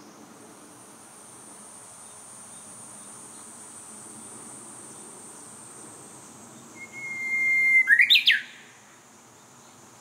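Japanese bush warbler (uguisu) singing its song once, about seven seconds in: a long held whistle that swells for about a second, then a quick, loud flourish of notes that rise and fall, the 'hoo-hokekyo'.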